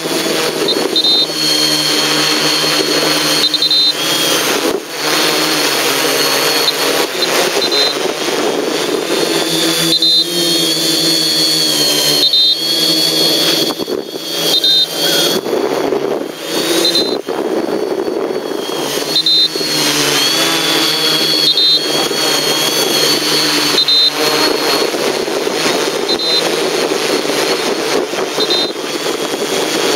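Quadcopter's electric motors and propellers running up close: a loud buzzing whine with rushing air, its pitch repeatedly rising and falling as the throttle changes in flight.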